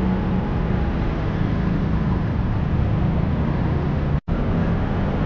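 Steady city street noise: traffic hum and general roadside din, with a sudden brief break about four seconds in.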